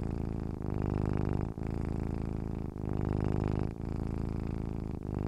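Domestic cat purring: a steady, finely pulsing rumble broken by a brief dip about once a second.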